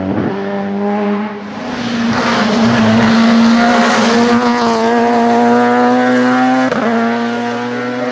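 Renault Laguna touring car's 2-litre racing engine running hard at high revs. Its note holds almost steady, rises slightly in the middle, and breaks briefly about seven seconds in.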